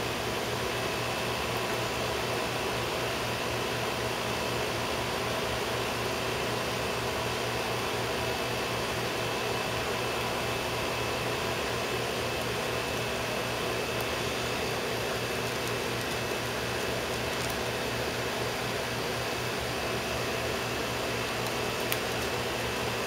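Steady hum and hiss of a running fan, even in level throughout, with a few faint small clicks in the second half.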